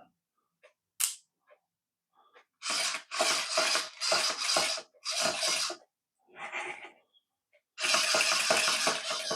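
Small geared electric motor of a toy remote-control penguin model whirring through its plastic gearbox in short bursts as the remote is pressed, about five quick runs, then one more, then a longer run near the end.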